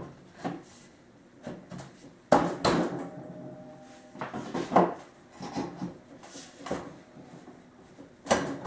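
Softwood table legs being fitted into place: irregular knocks and clatters of wooden pieces against each other with handling noise between, the sharpest knocks about two seconds in, near five seconds and near the end.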